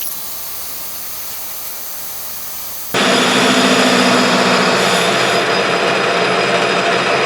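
Metal lathe running while turning down a steel lead screw blank; about three seconds in the sound gets suddenly much louder and noisier, and it stays steady after that.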